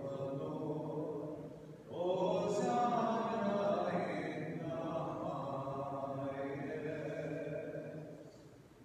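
Sung liturgical chant: slow phrases of held notes that fade away near the end.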